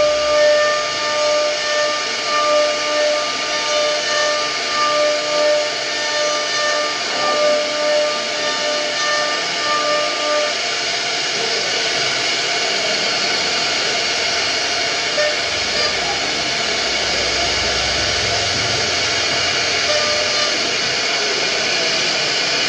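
CNC router spindle whining as its end-mill bit carves a wooden panel, with a steady hiss of cutting. For about the first ten seconds the whine swells and fades in a regular rhythm, about once a second; after that it settles into a steadier whine and hiss.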